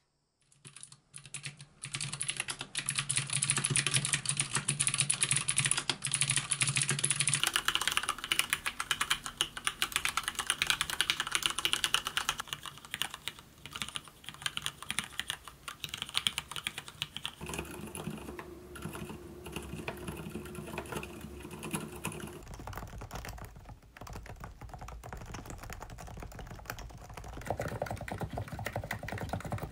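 Fast typing on a succession of keyboards, the clatter changing every few seconds as one board gives way to the next. Among them is a Leopold FC900R with stock Cherry MX Red linear switches, and near the end a Cox Endeavour with stock NIZ 50 g electrostatic capacitive switches.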